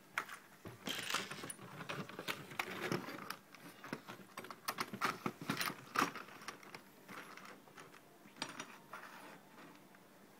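Handling noise of sign assembly: metal clamps and metal mounting bars clicking and rattling against hollow plastic channel letters as the letters are fitted onto the bars. Irregular clicks, knocks and rustling, busiest over the first six seconds, then sparser.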